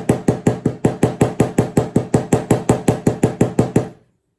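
Ball peen hammer tapping rapidly and evenly on a straight razor's pivot pin, about seven or eight light strikes a second, mushrooming the pin's end to hold the blade in its plastic scales. The tapping stops near the end.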